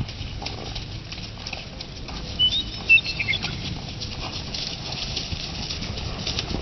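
American Quarter Horse mare trotting under a rider through tall grass: soft hoofbeats and the swish and patter of grass against her legs. A few short high chirps come about two and a half to three seconds in.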